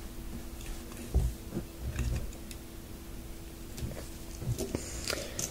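A few light clicks and soft knocks of plastic Lego pieces being handled as a Lego model's roof is closed and the model is set down on a baseplate.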